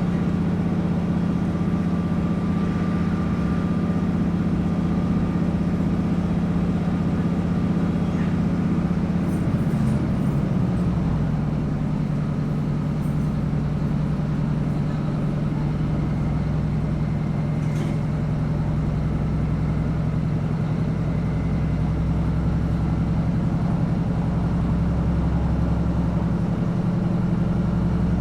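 Diesel engine of a Class 156 Sprinter railcar running steadily under the floor, heard from inside the carriage, with rumbling running noise. About ten seconds in, the engine note dips and settles at a slightly lower pitch.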